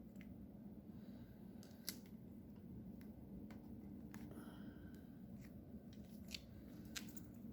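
Faint steady low hum of industrial plant machinery, with a few sharp light clicks scattered through it, one about two seconds in and two near the end.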